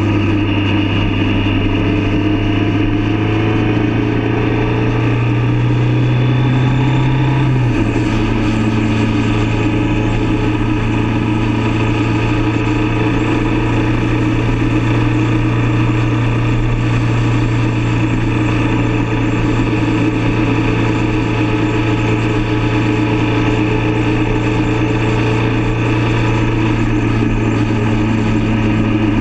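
Motorcycle engine running steadily at road speed. Its pitch climbs slightly over the first several seconds, drops suddenly about eight seconds in, then holds steady.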